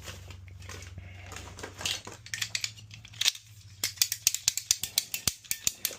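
Metal hand tools clinking and clicking as they are handled and gathered, a quick run of sharp clicks in the second half. A low steady hum in the first half stops about three seconds in.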